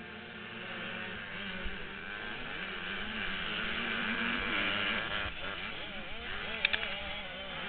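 KTM 105 two-stroke supermini dirt bike engine at full throttle off a motocross start, its pitch climbing and dropping through the gears and growing louder over the first few seconds, with other small two-stroke bikes running close by. A couple of sharp clicks come near the end.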